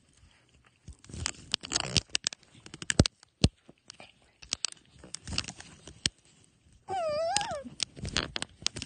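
Dogs playing close to the microphone: scuffling and sharp knocks, and one short whine, rising then falling in pitch, about seven seconds in.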